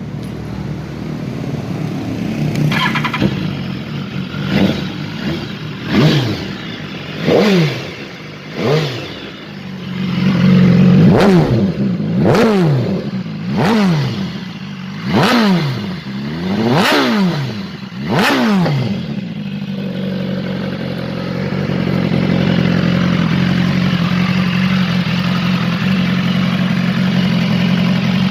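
BMW S1000RR's inline-four engine being revved while standing: it idles, then is blipped about ten times in quick succession, each rev rising sharply and dropping straight back, before settling back to a steady idle about two-thirds of the way through.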